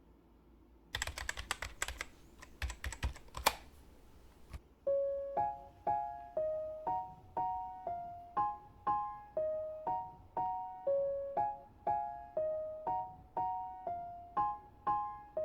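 Rapid computer-keyboard typing clicks for about three and a half seconds, then a gentle piano-like melody of single notes, about two a second, each one fading out.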